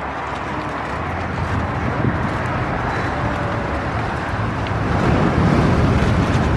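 Wind buffeting the microphone on a moving open pedal surrey, over the rolling of the surrey on the paved path. It gets louder about five seconds in.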